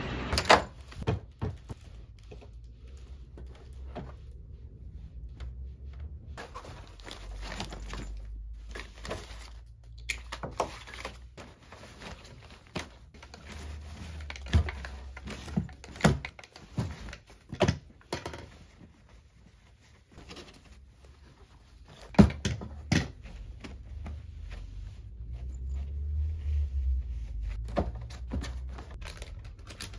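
Clothes and a canvas tote bag being handled and packed into a hard-shell suitcase, with a lint roller run over the fabric: scattered knocks and thunks with light rustling, the sharpest knocks about half a second in and about 22 seconds in.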